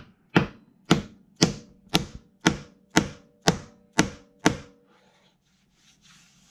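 Mallet knocking a bow tie inlay down into its glued, routed recess in a wooden slab: about ten sharp knocks, roughly two a second, that stop about four and a half seconds in.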